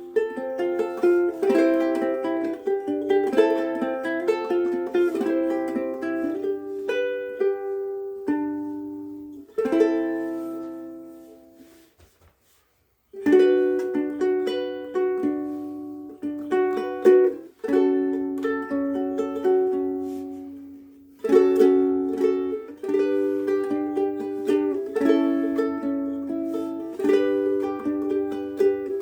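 Soprano ukulele played solo, picked melody notes over chords. The playing fades out about ten seconds in, goes almost silent for about a second, then starts up again and runs on.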